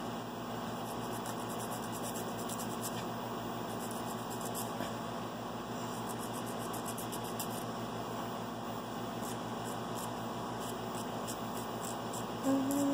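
Faint, irregular scratching of a nail file on a toenail over a steady hum.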